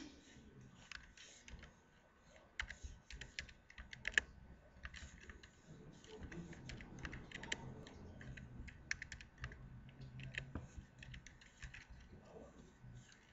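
Computer keyboard being typed on: irregular runs of quick keystroke clicks.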